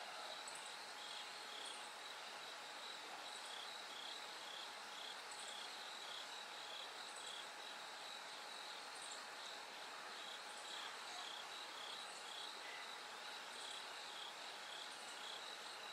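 Bell crickets and other autumn insects singing in a steady chorus: a continuous high trill with a regular pulse about twice a second, and short, higher chirps every second or two.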